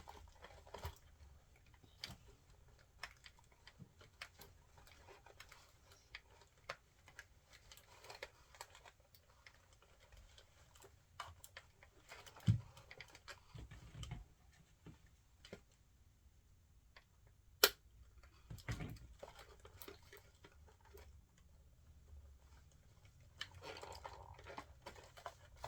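Faint scattered clicks and crinkles of a small toy doll and its plastic packaging being handled and unwrapped by hand, with a few soft thumps and one sharp click about two-thirds of the way through.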